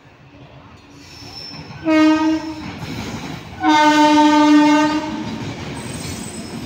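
Indian Railways electric locomotive horn sounding twice, a short blast about two seconds in and a longer one of about a second and a half, as the locomotive passes hauling a freight train. The steady rumble of the goods wagons rolling by carries on after the horn.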